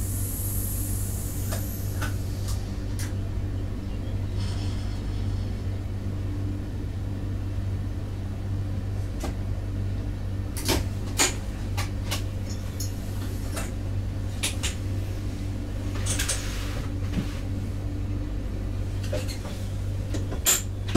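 Steady low drone of a Stadler GTW 2/6 diesel multiple unit's drive, heard inside the driver's cab. A handful of sharp clicks and knocks come through it, a pair about halfway and another near the end.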